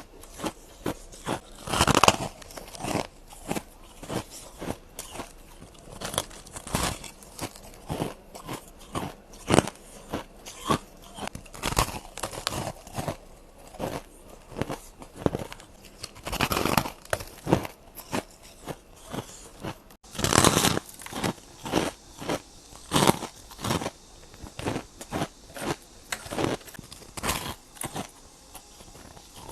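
Ice being bitten and chewed close to the microphone: a quick, irregular run of sharp crunches, several a second, with a few louder bites.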